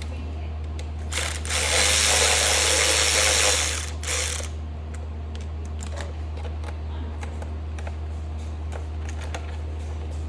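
Snap-on cordless ratchet with an 8 mm socket running in one burst of about three seconds, turning a skid plate bolt. Light clicks of the tool and bolt being handled follow.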